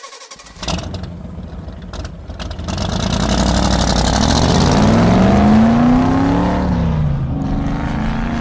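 A car engine revving up hard: its pitch climbs for a few seconds, drops back briefly, then climbs again.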